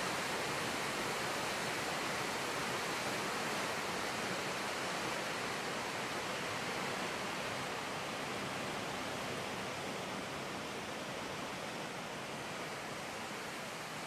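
Waterfall and rapids rushing steadily over rocks, an even hiss that grows slightly fainter toward the end.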